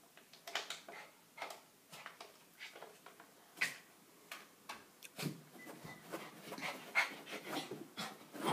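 Small dog breathing noisily in short, irregular puffs and snorts, about one or two a second, with a brief faint whine around the middle.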